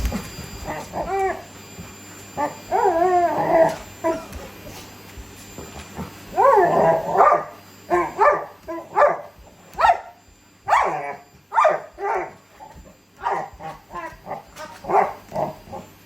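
Labrador retriever whining and giving short excited yips and barks, with a longer drawn-out whine about three seconds in and then a rapid run of short calls from about six seconds on.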